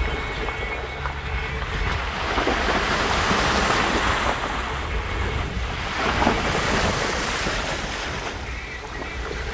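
Muddy water spraying up from a vehicle's tyre as it drives through puddles, a steady rushing wash that swells for a few seconds in the middle, with wind buffeting the microphone.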